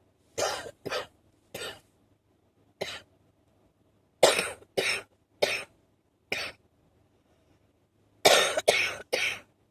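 A person coughing in short, separate coughs, about eleven in loose clusters with pauses between, the strongest a run of three near the end. The uploader takes it for an allergic cough.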